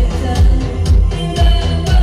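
Live electronic synth-pop band playing through a club PA: a steady heavy kick-drum beat about twice a second under synthesizers and percussion, with a woman singing into a handheld microphone.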